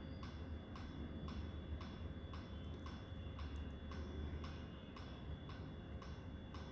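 Clock ticking steadily, about two ticks a second, over a faint low hum.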